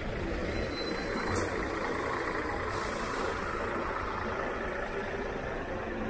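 A heavy vehicle, such as a bus or truck, runs with a steady rumble. Two short hisses of air cut in, one briefly about a second and a half in and a longer one about three seconds in, typical of air brakes being released.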